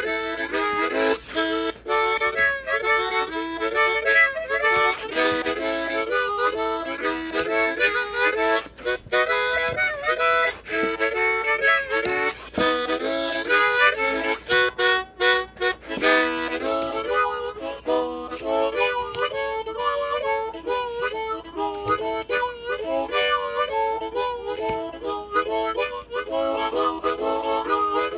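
Instrumental background music with a quick melody of short notes played on a wind instrument.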